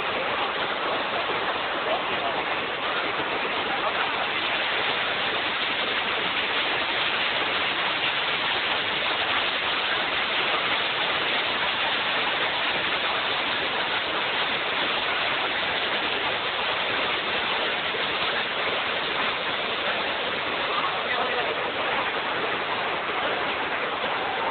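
Bridal Veil Falls pouring onto the boulders at its base: a steady, unbroken rush of falling water.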